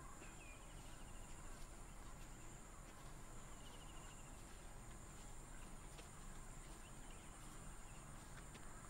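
Faint natural ambience: a steady, high-pitched insect drone, with two short bird trills, one just after the start and another about three and a half seconds in.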